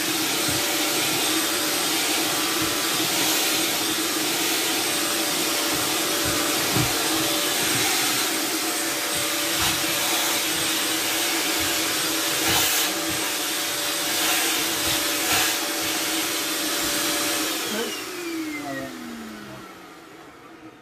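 Corded electric vacuum cleaner running steadily with occasional knocks against the surface being cleaned. Near the end it is switched off and its motor winds down, the hum falling in pitch as it fades.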